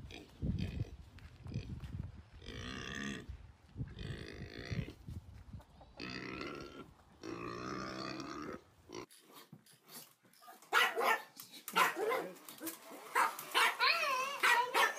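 A pig calling in several separate drawn-out cries, each about a second long. Then come a dog's wavering, high-pitched whines near the end.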